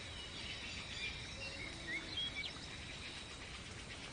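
Jungle ambience: a steady high insect drone with short bird chirps and whistles scattered through it.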